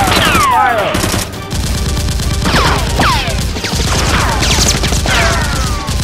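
Dubbed-in automatic gunfire sound effects, a rapid rattle of shots, with several ricochet whines that fall steeply in pitch.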